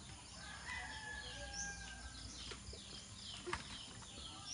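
A rooster crowing, one long call about a second in, over small birds chirping over and over. A single sharp knock comes about three and a half seconds in.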